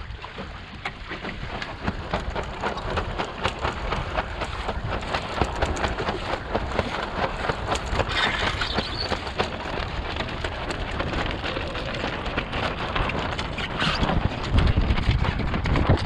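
Water splashing and spattering against the hull of a small wooden sailboat under way in choppy water, with wind buffeting the microphone. The wind rumble grows stronger near the end.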